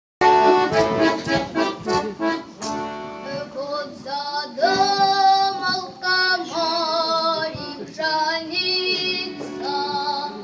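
Children's voices singing a song together to accordion accompaniment. The accordion opens alone with short rhythmic chords, and the voices come in after about three seconds with long held notes.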